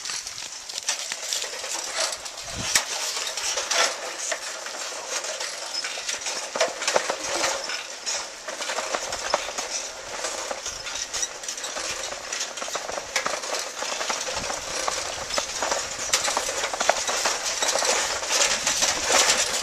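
A bicycle rattling and clattering as it rolls over a rough murram (laterite dirt) road: a dense, continuous run of small clicks and crunches.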